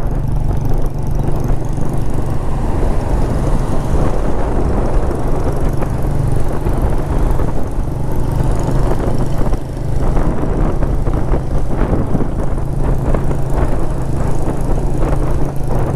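Motorcycle engine running at a steady road speed, with wind and road noise, briefly easing off about ten seconds in.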